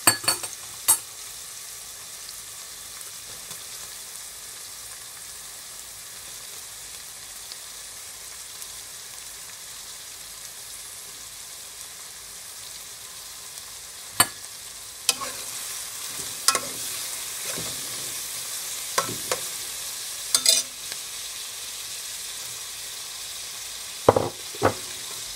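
Chopped onions, garlic and spring onions sizzling steadily in hot oil in a metal pot. From about halfway, a metal spoon knocks and scrapes against the pot as sliced bell peppers are stirred in, with two sharp clanks near the end.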